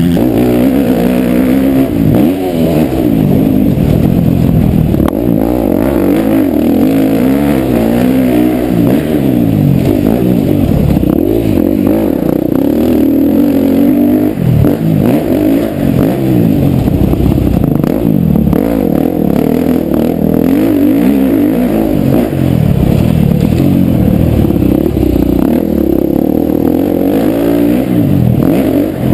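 KTM 250 SX-F's single-cylinder four-stroke engine revving up and falling back again and again as the motocross bike is ridden hard around a dirt track, heard close from an on-bike camera and sounding muffled.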